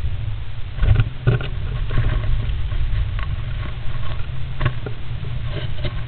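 Great spotted woodpecker shifting and preening inside a wooden roost box: scattered scratches and knocks of claws and feathers against the wooden walls, a small cluster about a second in and another near the end, over a steady low hum.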